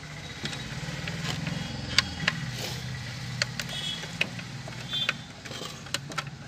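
Small metal clicks and scrapes of a screwdriver working loose the nut that holds the front switch of an electric clothes iron, the sharpest click about two seconds in, over a steady low engine-like hum.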